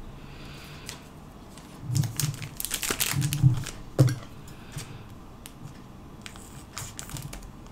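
Foil booster pack wrapper crinkling as it is handled, with a flurry of sharp crackles and clicks in the middle, then quieter rustling.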